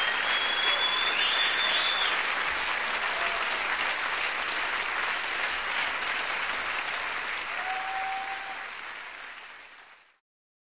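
Audience applauding, the clapping fading out over the last two seconds and ending in silence.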